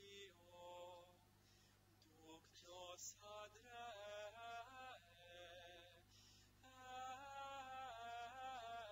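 Faint liturgical singing: a slow melody of long held notes moving step by step, broken by short pauses between phrases, and strongest in the last few seconds.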